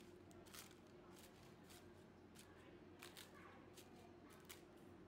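Faint, scattered crackles of the thin, crisp shell of a deep-fried bubble oil cake (paopao yougao) being broken apart with chopsticks.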